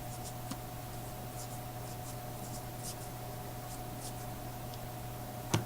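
Baseball trading cards being flipped and sorted by hand: faint light ticks and rustles over a steady electrical hum, with one sharper tap near the end.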